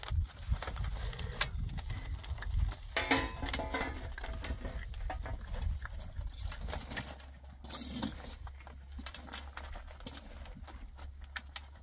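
Clinks, taps and crinkling of aluminium foil and metal cookware being handled, busiest in the first few seconds and quieter after about seven seconds, over a low steady rumble.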